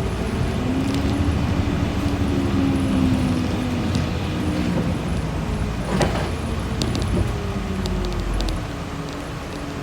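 City bus under way, heard from inside: the engine and drivetrain hum gliding up and down in pitch as the bus speeds up and slows. Small rattles and clicks run throughout, with a sharp knock about six seconds in.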